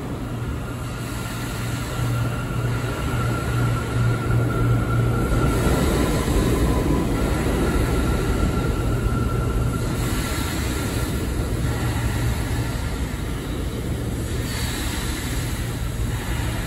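New York City subway train moving through the station, with a steady hum and rumble that grows louder over the first few seconds and then slowly eases off.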